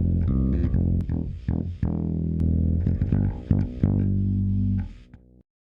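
Electric bass guitar playing a line of plucked notes, a demonstration bass signal that has been through hum removal. It fades a little before five seconds in and then cuts off to silence.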